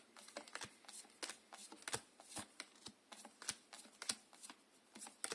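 Tarot deck being shuffled by hand: an irregular run of quick, soft card clicks and slaps, several a second.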